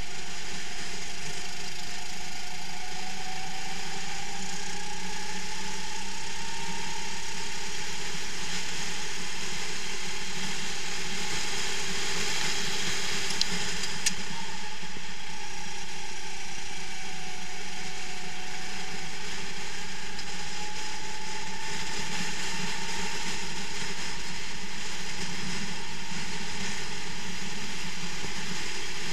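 Rental kart's four-stroke engine running at racing speed, heard from on board, its pitch rising and falling slowly as the kart speeds up and slows, twice, with a steady rushing noise over it. A brief click about halfway through.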